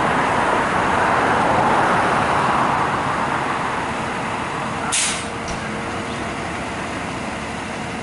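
A Pierce Enforcer fire engine runs in its station bay with a steady rushing noise, loudest in the first few seconds. About five seconds in, its air brakes release with one short, sharp hiss.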